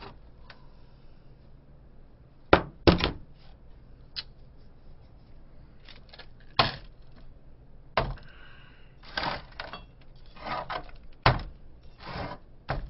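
Sharp knocks and clatter of bottles and plastic cups being handled and set down on a table. There are about five distinct knocks, two loud ones close together near the start, with lighter rustling and clinking between.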